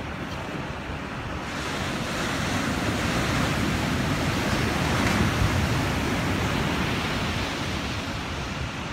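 Waist-high shore-break surf: a wave breaks and its wash rushes up the sand, swelling from about a second and a half in, at its loudest around the middle, then easing off.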